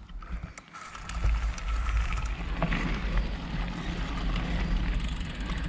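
Mountain bike rolling along a dirt trail, heard through a handlebar-mounted action camera: a steady low rumble of tyres and wind on the microphone begins about a second in as the bike moves off, with scattered small clicks and rattles from the bike.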